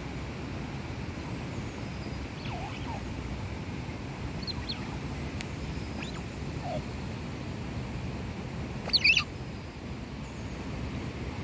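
Birds chirping faintly in the background over a low steady rumble, with a short, louder burst of chirps about nine seconds in.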